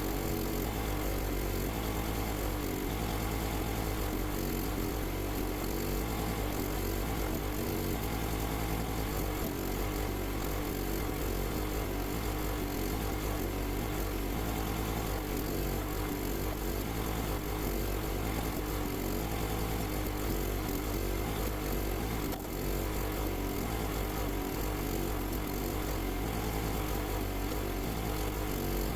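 Small petrol engine of a log splitter running steadily.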